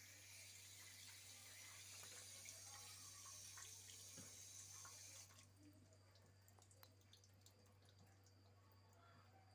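Water running faintly from a tap or supply hose, stopping suddenly about five seconds in, followed by a few faint drips.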